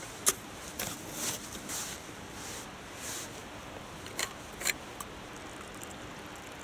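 A few sharp metal clinks and clicks from a steel thermos and its cup being handled, one near the start and a cluster about four to five seconds in, with softer handling noise between.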